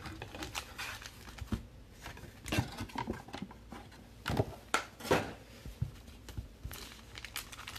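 Handling of trading cards and packs on a table: a few short taps and light rustles, with the loudest taps about two and a half, three, four and five seconds in.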